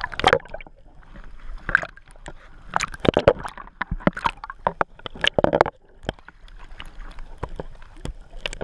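Choppy sea water sloshing and splashing against a camera held at the surface, in irregular bursts as waves wash over it and it dips under and comes back up, with gurgling while submerged.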